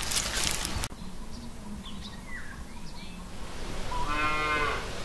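Hot tea pouring from a samovar's tap into a glass, cut off abruptly about a second in. Then a few faint bird chirps, and near the end a cow mooing once for about a second.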